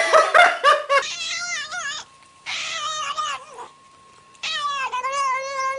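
Domestic cat making a string of odd meowing yowls whose pitch wavers up and down: a few quick short calls at first, then longer wavering ones, the last lasting over a second.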